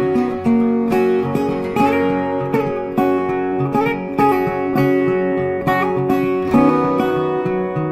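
Background music: an acoustic guitar playing a plucked melody.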